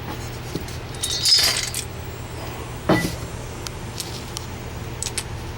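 Small hard objects clinking and rattling as they are handled, with one burst of clatter about a second in and another at about three seconds, over a steady low hum.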